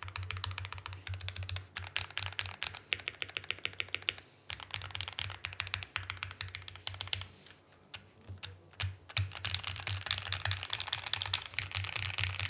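Typing on an Ikki 68 Aurora R1 mechanical keyboard with lubed Gateron Ink Black linear switches on an aluminum plate in a plastic case. It is a rapid, steady stream of keystrokes, with short pauses about four seconds in and around eight seconds in.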